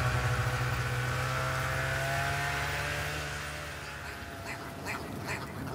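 Snowmobile engine running steadily, then fading away as it recedes. A few short bird calls start up near the end.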